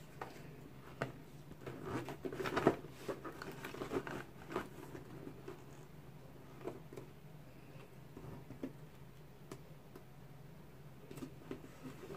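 Hands handling a Louis Vuitton Speedy 25 canvas handbag: its top zipper is pulled open, with a dense run of scratchy clicks and rustles about two to three seconds in, followed by occasional light taps and rustles.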